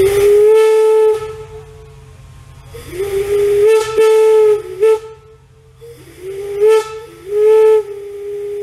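Large steam locomotive whistle blown on compressed air rather than steam, sounding one note in several long and short blasts. Each blast slides up into pitch as the valve opens, with the hiss of air behind it.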